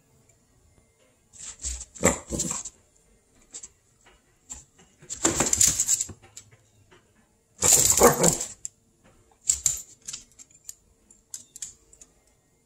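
Small dog barking at a squirrel in three loud, rough bursts about 2, 5½ and 8 seconds in, followed by a scatter of light clicks.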